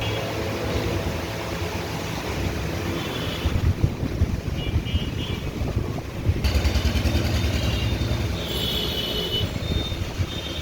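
Road traffic noise: a steady low rumble of passing vehicles, with a sudden change in the sound about six and a half seconds in.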